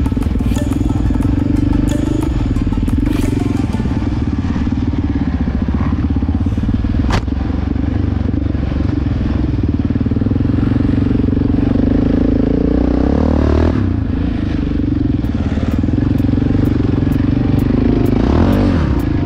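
Yamaha sport quad's engine running hard under riding load, with the pitch rising and falling as the throttle is worked, most clearly twice in the second half. A faint music beat comes in near the end.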